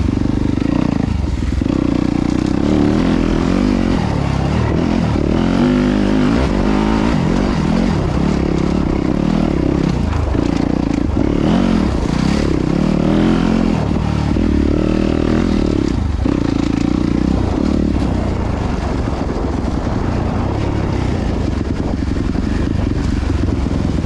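Yamaha YZ250FX four-stroke single-cylinder dirt bike engine under way on a trail. Its note rises and falls as the throttle is opened and shut, dipping briefly several times.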